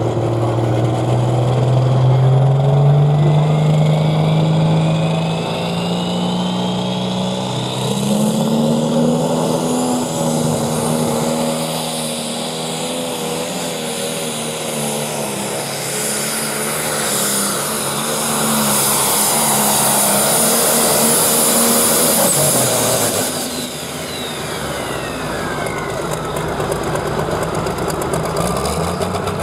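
Diesel engine of a John Deere Super Stock/Pro Stock pulling tractor at full power pulling the sled. The engine note and a high whine climb over the first several seconds, hold, then both fall away about three quarters of the way through as the engine comes off the throttle.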